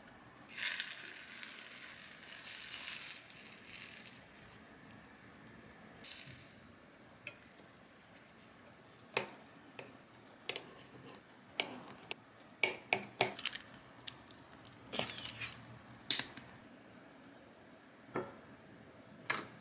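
Egg sizzling in a square omelette pan for about three seconds, then a run of sharp clicks and taps as a knife slices a rolled omelette on a ceramic plate.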